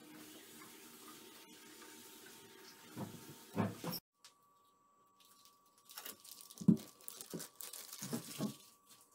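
Food-handling noise from hands topping pizzas in metal baking trays. Faint steady room noise with a few light clicks and thumps cuts off suddenly about four seconds in, followed by several dull knocks over the last few seconds.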